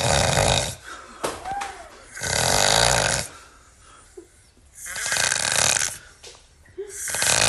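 A person snoring loudly: four snores at a steady rhythm, about one every two and a half seconds, each lasting about a second.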